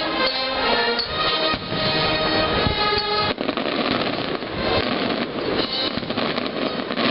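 Music with held notes, joined and then covered about three seconds in by a dense rush of pops and crackling from aerial firework shells bursting.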